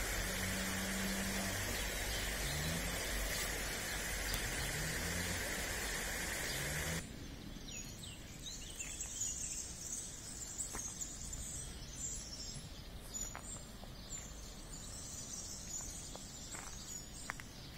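Outdoor ambience: a steady hiss with a low hum that rises in pitch three times, then an abrupt change about seven seconds in to quieter surroundings with small birds chirping and a few scattered light taps.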